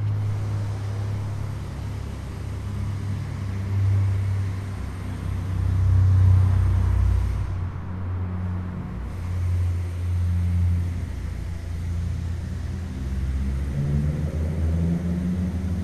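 Low, steady rumble with a deep hum, swelling loudest about six seconds in.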